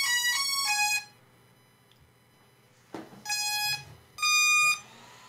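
Hubsan Zino 2 Plus drone powering up: a quick run of electronic beeps at changing pitches, a click about three seconds in, then two separate beeps. Near the end a faint rising whine settles into a steady tone.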